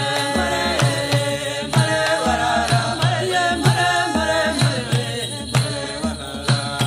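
Rwandan song: a woman singing a melody over a steady low drum beat with light rattling percussion.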